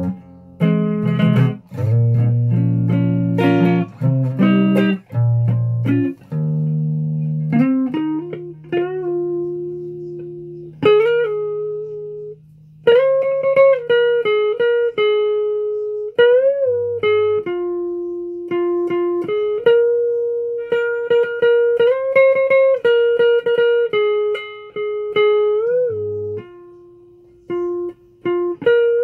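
A guitar being plucked: low notes and chords for about the first ten seconds, then a slow single-note melody higher up, with a few notes bent in pitch.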